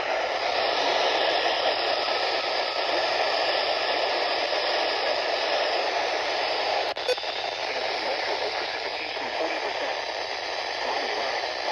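Steady static hiss from a weather radio receiver, with one sharp click about seven seconds in.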